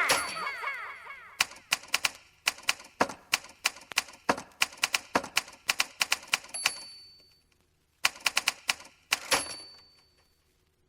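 Typewriter keys clacking in an irregular run of strokes after the electronic music fades away. There is a pause, a short burst of further keystrokes, and a bell ding about two-thirds through and again near the end.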